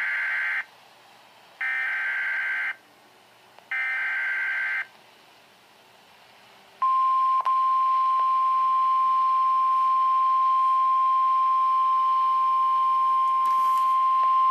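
Emergency Alert System SAME header: three bursts of warbling data tones, each about a second long, followed about seven seconds in by the NOAA Weather Radio warning alarm, one loud steady tone near 1050 Hz, announcing a severe thunderstorm warning.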